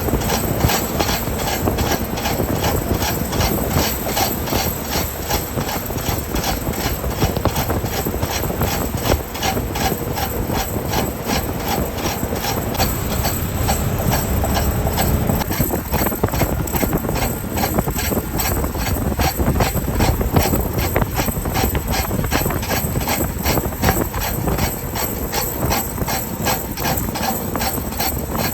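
Snow chains on a truck trailer's tyres clanking rhythmically, several strikes a second, over the rumble of the rolling truck. An abnormal noise that suggests the chains are badly fitted.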